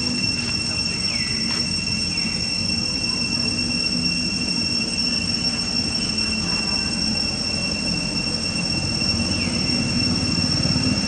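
Insects droning with a steady high-pitched whine over a low rumbling background noise, with a few short falling chirps.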